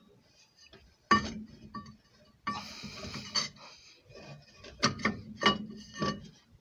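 Cast-iron rear brake drum being slid back over freshly adjusted drum-brake shoes and the hub's wheel studs: a few metallic knocks and clunks, with a scraping slide as the drum goes on snug over the shoes.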